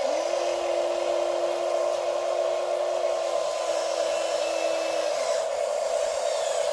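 Small electric motors and gears of radio-controlled construction models running with a steady whir; a motor whine comes in at the start, holds steady and drops away about five seconds in.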